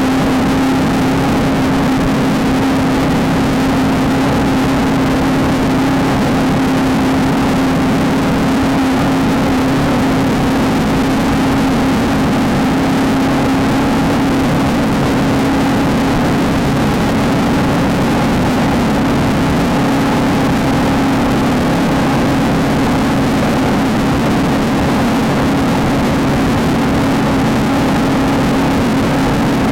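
Off-road race car engine running hard at a steady high pitch that barely changes, over a constant rushing noise.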